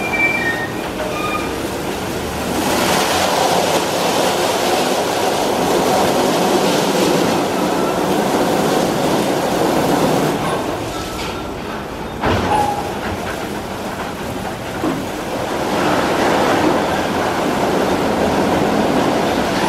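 Istobal M'Start rollover car wash at work: its rotating brushes scrub the car under water spray, with the gantry machinery running, a steady wet swishing rumble. Short squeaks near the start and a single knock about twelve seconds in.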